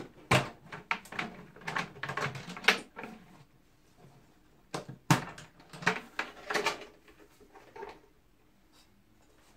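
Clicks and knocks of plastic and metal as PL-L compact fluorescent tubes are worked out of their sockets in a street-lamp head and the housing is handled. A run of clatter for the first three seconds, another about five seconds in, then quiet near the end.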